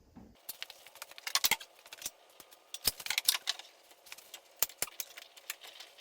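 Metal hand tools clinking and clicking: a steel socket and breaker bar knocking and rattling as they are worked up toward a shock nut. The clicks come irregularly, in small clusters about one and a half, three and nearly five seconds in.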